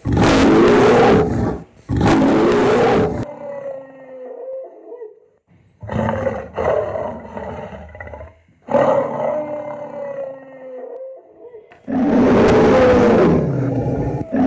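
Dinosaur roar sound effects: two loud roars, then quieter pitched growling calls, then a long loud roar near the end.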